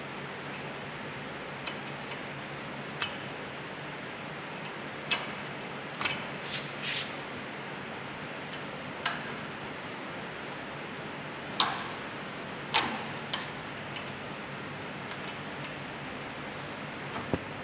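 A steel spanner clinking against the bolts and cast-iron parts of a lathe apron as they are worked loose by hand: a dozen or so short, sharp metallic clicks at irregular intervals over a steady hiss.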